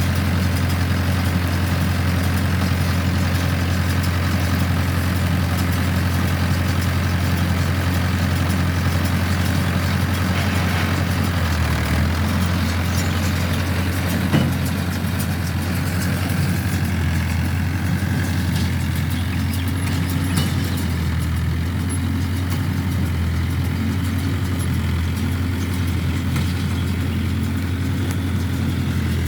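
Mahindra tractor's diesel engine running steadily at a constant speed, with a single sharp knock about halfway through.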